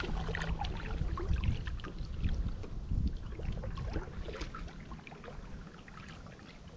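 Kayak paddling: water dripping and trickling off the paddle blades, with small splashes at the surface, fading after about four seconds.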